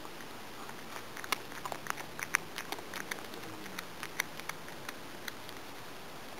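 Domestic cat chewing a small animal it has caught: a run of irregular, sharp crunches and clicks, busiest in the middle.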